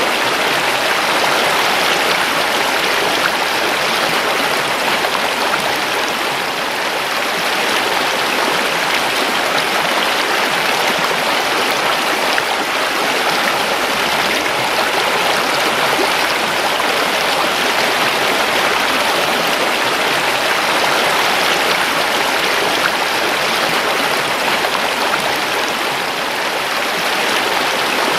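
A river flowing, a steady rush of water over rocks.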